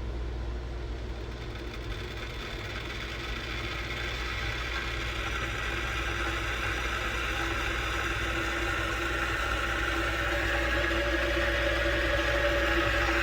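Water heating in a stainless-steel gooseneck electric kettle: a hissing rumble that grows steadily louder as the water nears the boil, over a low steady hum.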